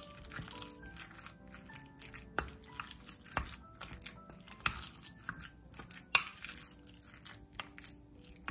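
Wooden spoon mixing seasoned minced pork in a glass bowl: repeated wet squishing and scraping with a few sharp clicks, the loudest about six seconds in, over background music.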